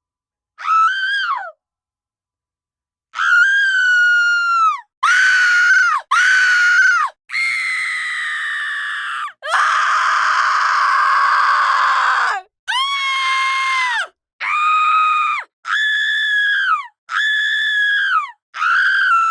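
A run of about eleven high-pitched women's screams, each a second or two long and dropping in pitch as it ends, separated by short gaps of silence. One near the middle is longer and rougher than the rest.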